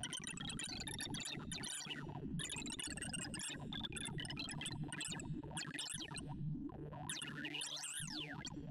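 Sonification of Batcher's bitonic sort in the ArrayV sorting visualiser: a rapid stream of short synthesized tone blips whose pitch follows the values being compared and swapped. Near the end they form rising and falling sweeps that cross each other.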